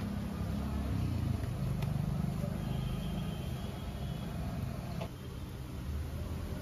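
Low rumble of street traffic, swelling for a couple of seconds as a vehicle goes by, with a couple of faint clicks.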